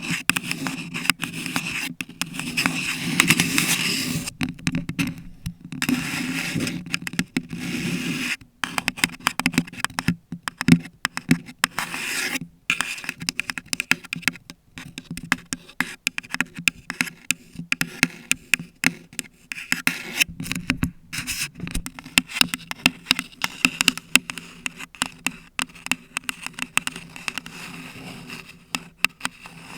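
Long 3D nails scratching a paper cup and a bare Blue Yeti microphone up close, in quick, irregular strokes with sharp clicks, pausing briefly now and then.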